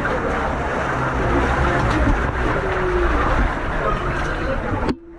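Boat engine running steadily under a loud rush of wind and water, cutting off abruptly near the end.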